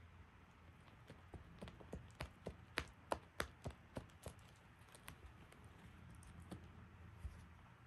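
Quiet, irregular small clicks and taps from a cat biting and clawing at a feather-ball wand toy. They cluster through the middle and are loudest about three seconds in.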